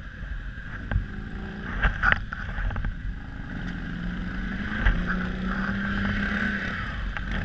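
Quadzilla X8 quad bike engine running at low revs as the quad moves off and turns, its note rising a little in the middle, with a few sharp knocks.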